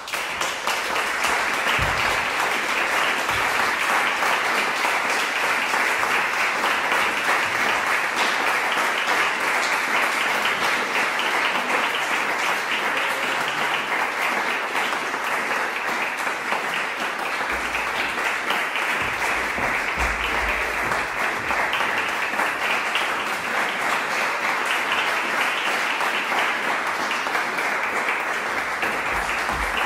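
Audience applauding steadily, breaking out all at once out of near silence.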